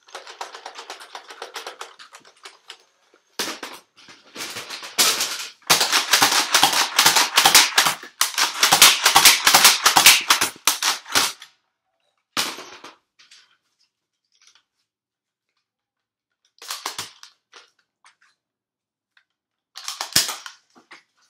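Nerf foam-dart blasters being primed and fired over and over. A softer rattling opens for about three seconds, then a fast run of sharp plastic clacks and snaps lasts several seconds, and a few scattered shots follow near the end.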